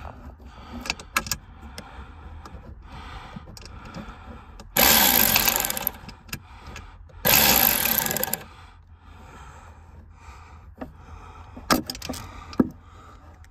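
Power driver with a socket extension running in two bursts of about a second each, spinning out an airbag mounting bolt under the dash. Small clicks and knocks of the tool being handled come between the bursts.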